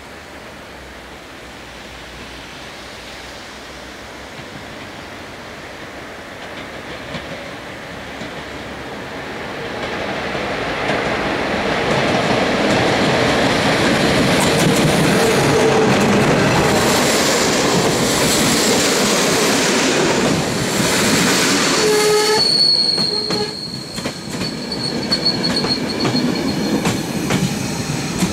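Romanian Class 41 (EA-series) electric locomotive hauling a passenger train, approaching and passing close by. Its noise grows from faint to loud about ten seconds in, and is loudest as the locomotive goes past. A couple of brief tones sound as it passes, then the coaches roll by with wheels clattering over the rails and a thin, high wheel squeal.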